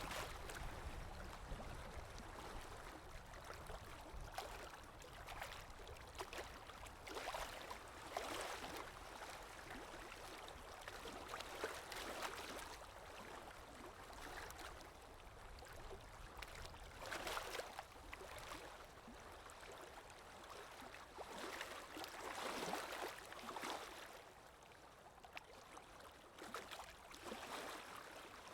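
Small lake waves breaking and washing onto the shore, a swell of hissing surf every three to five seconds over a steady wash of water.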